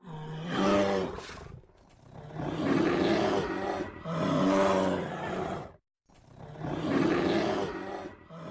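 Sloth bears growling and roaring as they spar face to face, in four rough bouts of about two seconds each with brief pauses between them.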